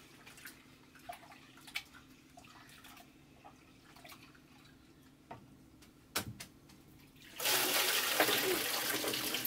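Water poured from a tipped metal pot in a steady splashing stream, starting about three-quarters of the way in and running on loudly. Before it, only faint clinks and knocks of hands working in the pot.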